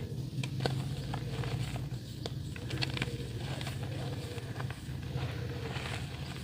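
Soft dirt crumbling into water: scattered small crackles and crunches over a steady low hum.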